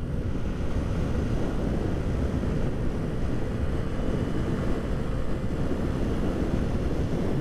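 Wind rushing over the microphone with a 1985 Honda Elite 150's single-cylinder engine running steadily underneath as the scooter cruises at about 25 mph. The engine pulls cleanly, not bogging.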